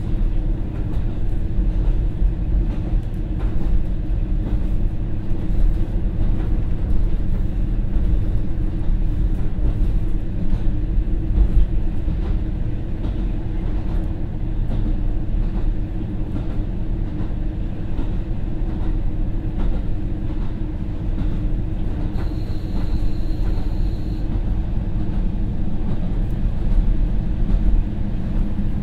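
Interior sound of the KiHa 40-820 diesel railcar under way: the steady drone of its original, non-direct-injection DMF15HSA diesel engine, still in torque-converter drive rather than direct drive, with faint clicks from the rail joints. A faint high-pitched tone sounds for about two seconds near the end.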